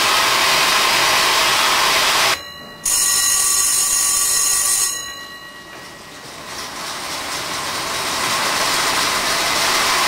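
Rope-haulage winding engine running with a steady noise that cuts off sharply; an electric signal bell then rings continuously for about two seconds. After the bell the engine noise falls away, then builds steadily again as the haulage gets under way.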